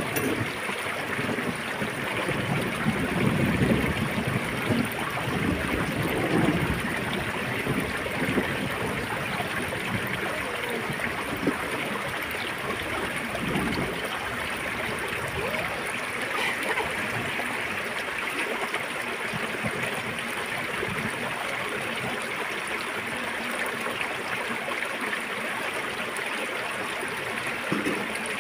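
Small shallow stream running over rocks, a steady rush of water. There are some low rumbles in the first seven seconds or so.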